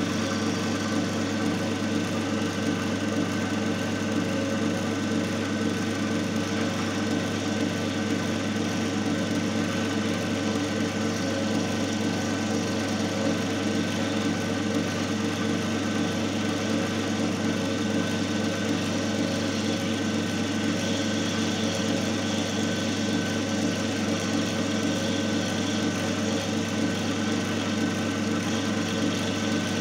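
Single-phase capacitor-run induction motor and the load machine coupled to its shaft, running under load at about 1,444 rpm. The sound is a steady, unchanging hum.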